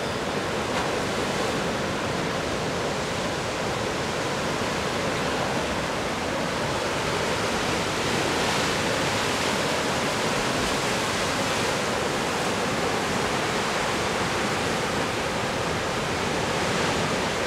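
Pacific surf washing and breaking among coastal rocks: a steady rush of water that swells slightly about halfway through and again near the end.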